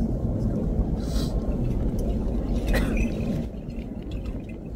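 A low, uneven outdoor rumble that drops in level about three and a half seconds in.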